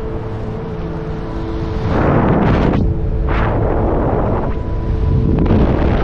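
Wind buffeting the microphone in flight: a steady low rumble that swells into heavier gusts about two seconds in and again in the second half.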